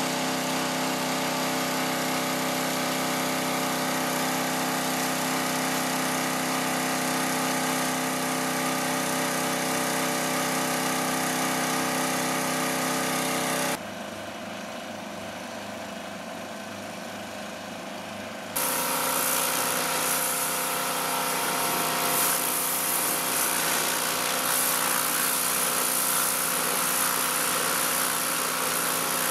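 Hyundai HYW2500P petrol pressure washer's engine running steadily under load while spraying. About halfway through it drops quieter for around five seconds, then comes back with a strong hiss of the water jet striking the car's side and wheel.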